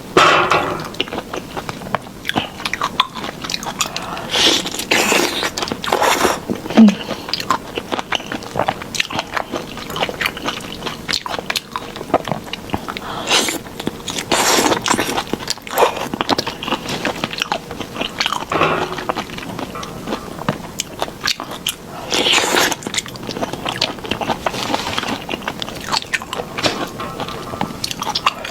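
A person eating sauced shrimp up close: irregular wet biting and chewing with sharp clicks, swelling into louder clusters of bites three or four times.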